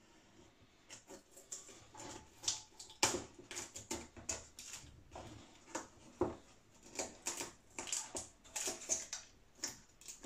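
Irregular sharp cracks, snaps and crunches of thin balsa wood being cut and broken away, cutting the damaged fuselage back to solid wood. The loudest crunches come about three and six seconds in.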